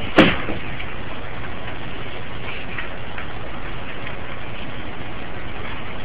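Hampton Bay Littleton 42-inch ceiling fan with bent blades running with a steady whir, picked up on a phone's microphone. A sharp click comes a fraction of a second in, and a few faint ticks come around the middle.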